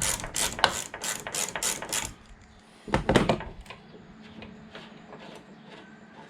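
Ratchet wrench clicking rapidly, about five clicks a second, as the 1/2-inch bracket bolt on the tailgate is backed out; the clicking stops about two seconds in. A short clatter follows about a second later, then only faint scattered ticks.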